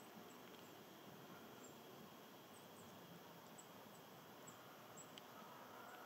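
Near silence: faint outdoor background hiss with a few scattered, very short, high-pitched chirps.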